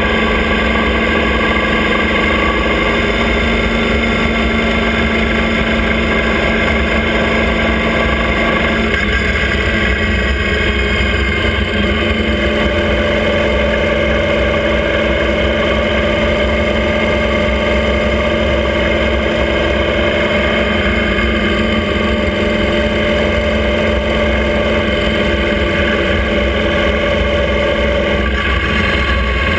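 Motorcycle-and-sidecar outfit's engine running steadily at road speed, with a constant low rush of wind and road noise. The engine note changes about nine seconds in and again near the end.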